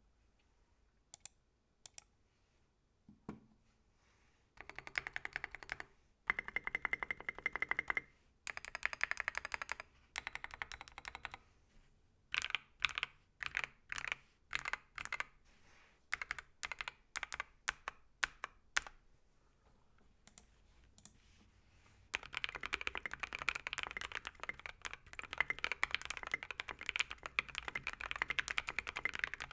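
Typing on a tenkeyless mechanical keyboard with lubed and filmed TKC C3 Tangerine V2 67g linear switches, a brass plate and SA profile keycaps. A few single key clicks, then short runs of fast typing. Next comes a stretch of separate keystrokes about two a second, and then continuous fast typing over the last third.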